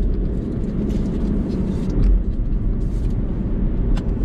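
Steady low rumble of a car on the move, heard from inside the cabin, with a single light click about four seconds in.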